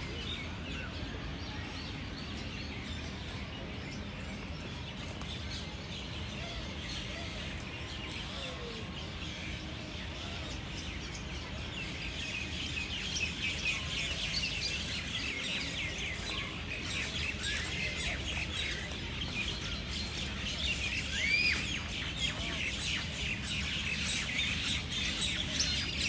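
Many small birds chirping and twittering in trees, a dense overlapping chorus that grows busier and louder about halfway through, over a steady low background rumble.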